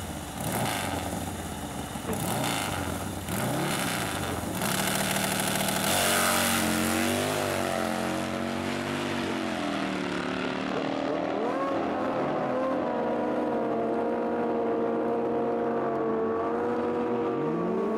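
V-twin drag motorcycle engine blipped at the start line, then launched at full throttle about six seconds in, its pitch climbing and dropping back with each gear shift as it pulls away down the strip and grows duller with distance.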